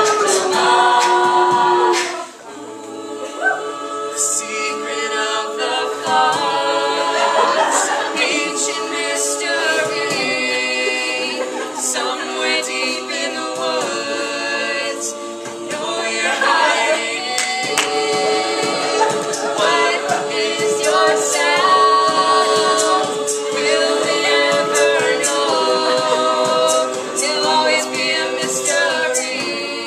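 A mixed-voice a cappella group singing, several voices holding layered chords over a steady percussive beat.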